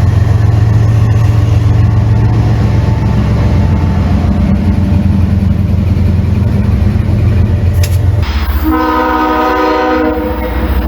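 Diesel locomotive running by with a heavy, pulsing engine rumble. About eight seconds in, its air horn sounds one chord of several tones for about a second and a half: a weird sounding horn.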